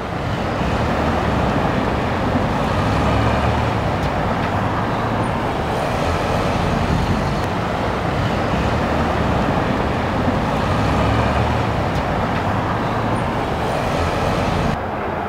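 Steady street traffic noise with vehicles going by, fading in at the start and dropping a little near the end.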